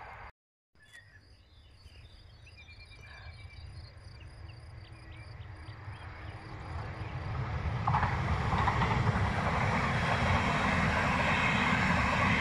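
Stadler KISS double-deck electric multiple unit approaching and passing: a low rumble that grows steadily louder and becomes a loud, even rush of wheels on rails about two-thirds of the way in. Small birds chirp faintly before the train gets close.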